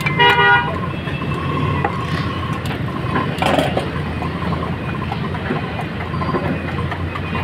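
Street traffic rumbling steadily, with a vehicle horn honking briefly near the start.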